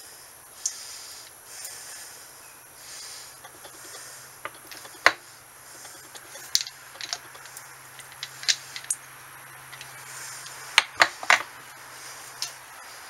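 Sharp metallic clicks and clinks as steel gears and a shaft are handled and fitted into an open Peerless MST transaxle case. The clicks come scattered, with three close together near the end, over a faint low hum that stops near the end.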